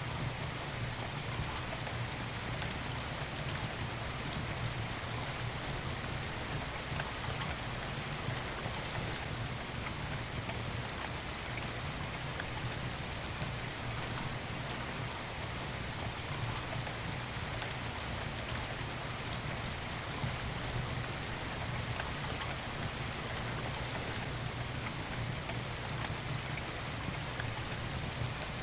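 Steady rain falling, with a few scattered sharp pops from a wood fire burning in a fireplace.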